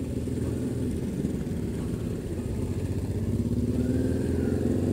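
Motorcycle engine running as the bike rides along, its pitch and loudness rising slowly as it gathers speed.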